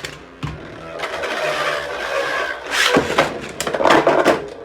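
Two Beyblade spinning tops whirring in a plastic stadium, clashing repeatedly with sharp clicks and clacks, the hardest collisions coming in clusters about three and four seconds in.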